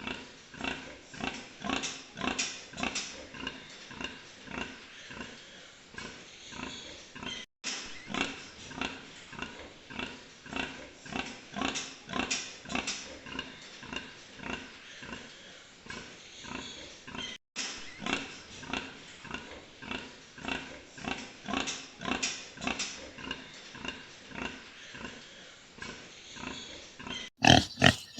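Sow grunting in a steady rhythm, about two short grunts a second. Near the end the grunting becomes much louder.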